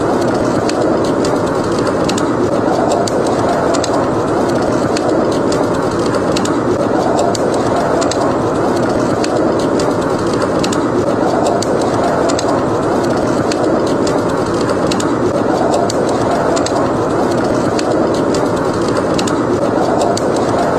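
Blizzard wind rushing steadily with slow swells, under a wood fire in a fireplace crackling with frequent sharp pops.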